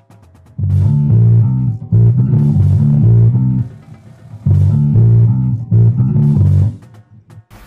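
Electric bass guitar playing a solo melodic line: loud, low plucked notes in two short phrases with a gap between, fading out near the end.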